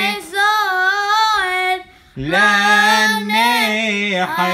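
A boy's solo voice singing a Hebrew hymn unaccompanied. He holds long notes with vibrato and breaks off for a breath about two seconds in, then comes back on a new sustained phrase.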